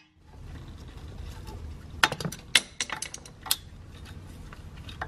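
Light metallic clicks and taps, about half a dozen bunched between two and three and a half seconds in, as a thin metal pick is worked between an ABS wheel speed sensor and the steering knuckle to pry the sensor out. A low steady hum runs underneath.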